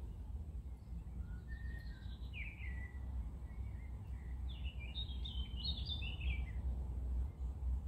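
Small songbird chirping: a few short chirps about two seconds in, then a quick run of high twittering notes around five to six seconds in, over a steady low rumble.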